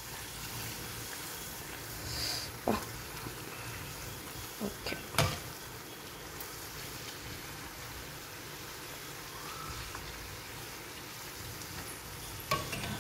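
A poori deep-frying in hot oil in a kadai, a steady sizzle as it puffs up and browns, with a few sharp clicks of the steel slotted spoon against the pan, a cluster of them about five seconds in.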